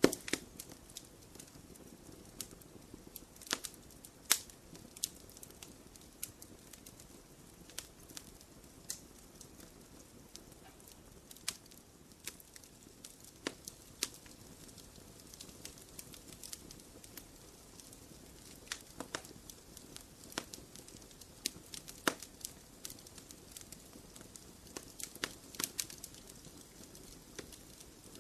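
Wood fire in a fireplace crackling, with irregular sharp pops and snaps of varying loudness over a soft, steady low rush.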